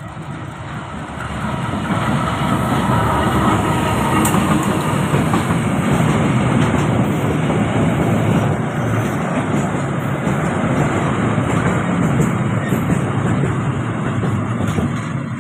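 Diesel locomotive hauling a ballast train of hopper wagons passes close by, getting louder over the first couple of seconds, then the wagons' wheels rolling steadily on the rails as they go past.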